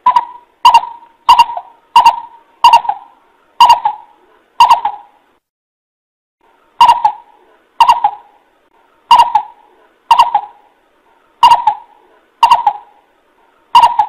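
Coucal (bìm bịp) giving its lure call: short, abrupt hoots repeated about once a second, in two runs with a brief pause midway.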